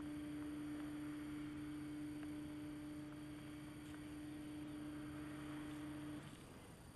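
Metal detector sounding one steady low tone, held for about six seconds and then cutting off suddenly: the signal of metal close to its search head.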